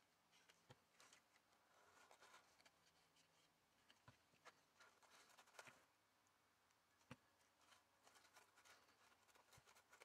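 Near silence with a few faint taps and soft rustles of hands handling the paper craft.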